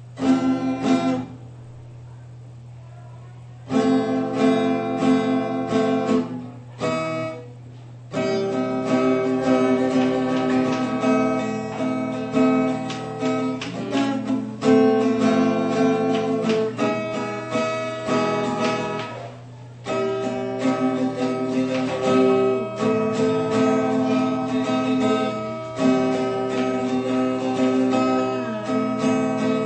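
Acoustic guitar playing an instrumental piece of plucked notes and strummed chords. It opens with one short chord, then after a pause plays two short phrases, and from about eight seconds in plays on almost without a break. A steady low hum runs underneath.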